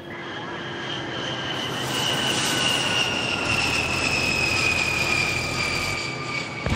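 Jet aircraft flyby sound effect: a rushing roar building in level, with a high whine sliding slowly down in pitch.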